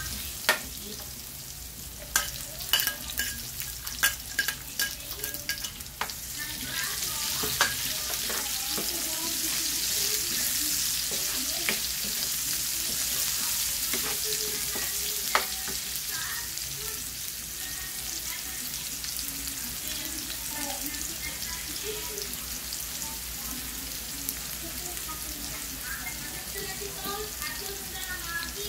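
Chopped garlic and onions sizzling in hot oil in a frying pan. The sizzle swells a few seconds in, and a spatula clicks and scrapes against the pan, mostly in the first several seconds.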